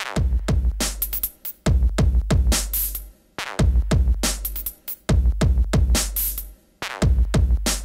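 Electronic music with a drum-machine beat: sharp repeated drum hits over long, deep bass notes.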